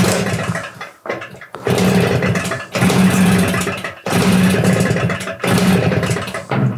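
Zündapp C50 Sport's 50 cc two-stroke single-cylinder engine running and being revved, surging up about five times with brief dips in between.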